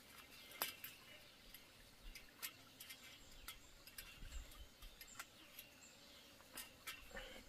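Faint, irregular small clicks and scrapes as pliers twist a thin tie wire around a metal fence post to fasten chain-link mesh.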